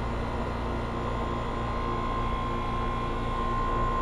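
Carrier two-and-a-half-ton high-efficiency central air conditioner's outdoor condensing unit running: a steady, quiet hum from its compressor and fan, with a higher steady tone that grows stronger about halfway through. The quietness is taken by the owner as a sign of a scroll compressor.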